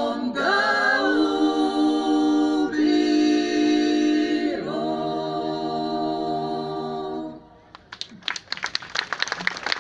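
A female klapa sings a cappella in close harmony, ending on a long held final chord that stops about seven seconds in. The audience starts applauding about a second later.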